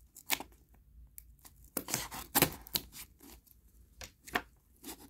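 Knife blade slitting packing tape along the edge of a small cardboard shipping box, with the cardboard flaps being handled: a string of short, irregular scrapes and clicks, the loudest about two and a half seconds in.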